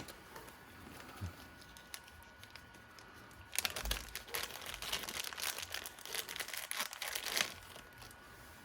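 Small plastic parts packaging being opened and handled, crinkling and rustling, louder and busier from about a third of the way in until near the end.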